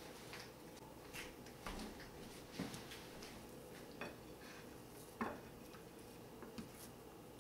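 Faint, scattered clicks and light knocks as raw bone-in lamb pieces are moved about and set down on a plate. The most distinct knock comes about five seconds in.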